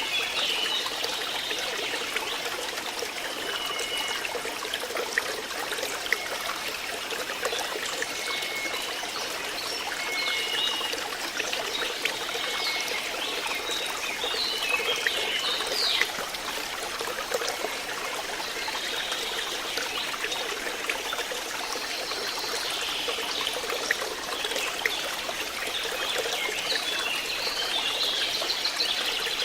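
Water flowing and trickling steadily, with short high chirps now and then over it.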